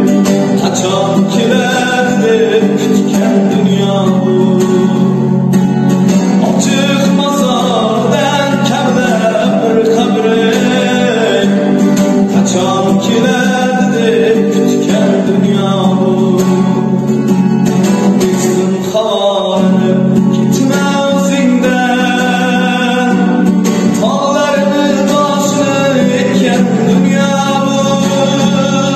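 A young man singing an Uzbek song, with a plucked-string accompaniment under the voice.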